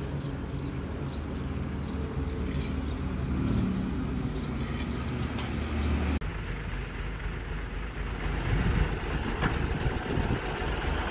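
A concrete poker vibrator's motor runs steadily as its head is worked through wet concrete. A little after halfway the sound cuts to a truck-mounted crane's engine running, with a brief rise in engine speed a few seconds before the end.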